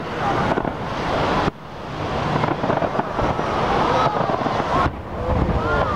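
Aerial fireworks shells bursting and crackling in quick succession, a dense continuous racket that drops away abruptly about one and a half seconds in and again near five seconds before building back up.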